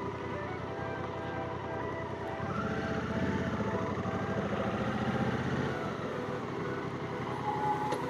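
Honda Africa Twin CRF1100L's 1084 cc parallel-twin engine running under way. About two and a half seconds in it pulls harder for a few seconds, its note rising, then eases back to a steady cruise.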